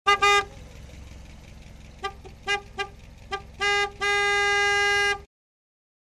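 A taxi's car horn honking in a single steady pitch: two quick honks, a pause, a string of short taps, then one long held blast of just over a second that cuts off. A low steady rumble sits under the honks.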